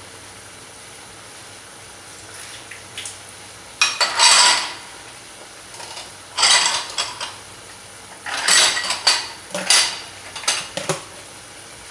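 Dishes and metal utensils clattering and scraping in about five short bursts, starting about four seconds in, over a faint steady sizzle from the pot of chicken.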